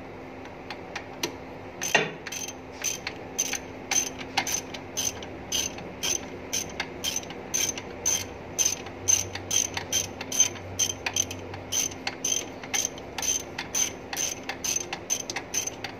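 Socket ratchet wrench clicking in quick, even runs, about two to three clicks a second, as it is swung back and forth tightening a mounting bolt of a forklift steering motor.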